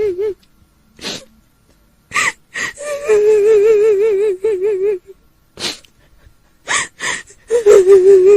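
A woman's high wailing cry with a fast quavering wobble, the crying voice of a kuntilanak ghost. Held wailing notes are broken by short, sharp breathy gasps: several gasps in the first half, a long quavering wail in the middle, more gasps, then the wail resumes near the end.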